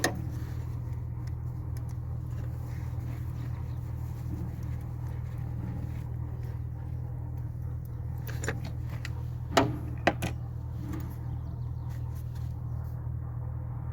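A steady low machine hum, with a few sharp metallic clinks of hand tools on engine parts, about three of them near the middle.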